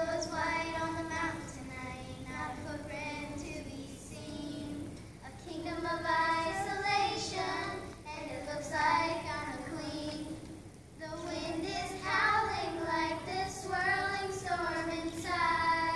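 Children singing a song, in phrases with short breaks between them.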